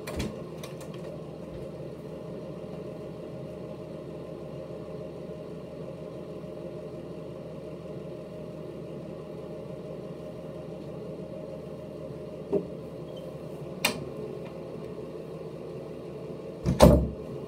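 Steady low hum of a small motor running, with a couple of faint knocks toward the end and a louder thump just before the end.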